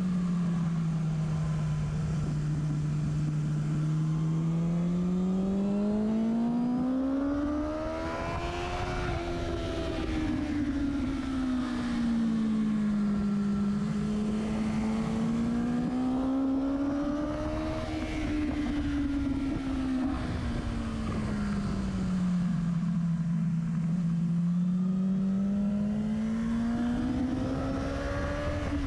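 Motorcycle engine and exhaust at speed on a race track, recorded beside the silencer. The revs rise and fall smoothly several times, each rise and fall taking a few seconds, over steady wind and road noise.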